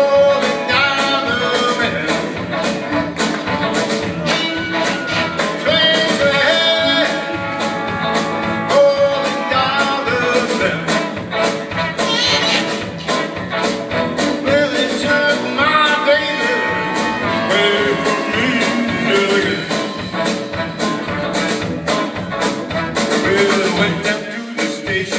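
Live rock band playing a song: electric guitars, piano and a drum kit keeping a steady beat of about two strokes a second, with a lead singer's voice over the top.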